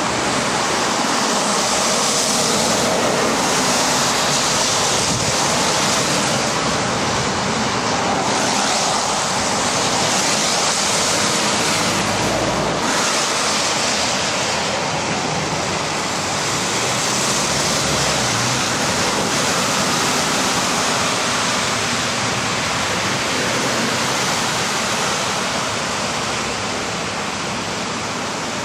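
Heavy lorries passing on a rain-soaked road: a steady hiss of tyres and spray on wet tarmac, with engine noise underneath.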